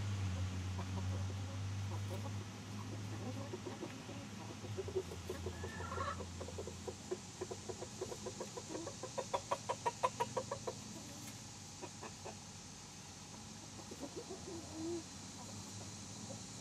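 A bird clucking: a quick run of about five clucks a second in the middle, with a few single calls before and after. A low steady hum fades out in the first half.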